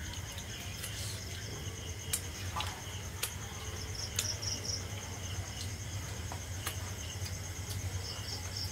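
Night chorus of crickets and other insects: a steady high trill runs throughout over a low steady hum. A separate pulsed chirp comes in about four seconds in and again near the end, and sharp ticks are scattered between.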